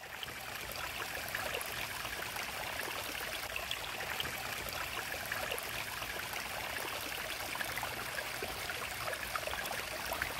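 Small woodland stream trickling and splashing steadily, with many fine droplet ticks.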